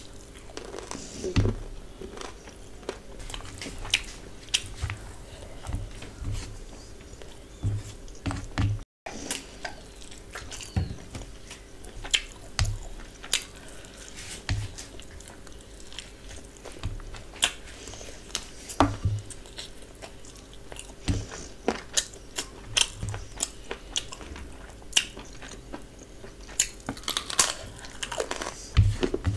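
Close-miked eating: a person chewing and biting mouthfuls of biryani rice and meat taken by hand, with irregular wet mouth clicks and smacks over a faint steady hum.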